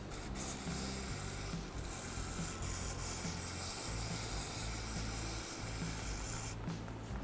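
Aerosol can of brake parts cleaner spraying through its straw in one long hiss, which stops near the end.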